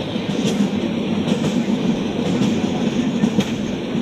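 A steady loud rumble with faint clicks about once a second.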